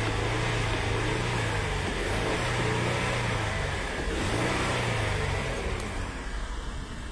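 Ford Explorer engine running after a test start, with its pitch dipping and rising briefly about four seconds in, then dying away about six seconds in. It now starts and runs after a no-start fault was repaired.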